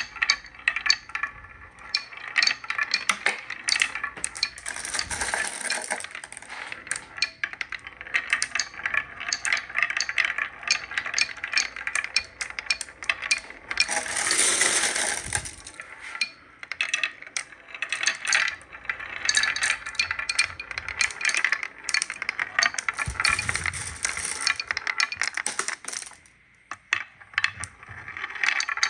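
Many marbles clicking and rattling as they run down a wooden marble run, a dense, irregular patter of small hits. There are a few longer rushing stretches, the longest lasting about a second and a half just past the middle.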